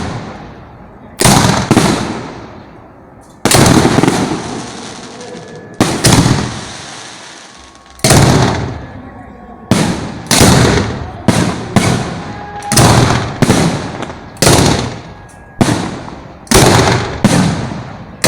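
Fireworks bursting close by: a string of loud sharp bangs, each trailing off in a long fading rumble. The bangs come about two seconds apart at first and follow faster, roughly every half second to second, in the second half.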